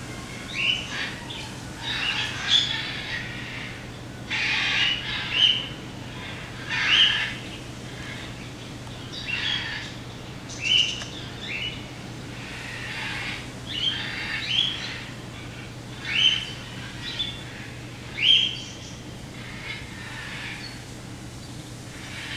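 Golden-handed tamarins giving short, high-pitched chirping calls, one every second or two, some sweeping quickly up or down in pitch, over a steady low hum.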